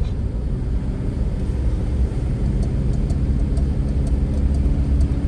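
Vehicle driving on a paved road: a steady low rumble of engine and road noise, with a steady hum coming in about two seconds in.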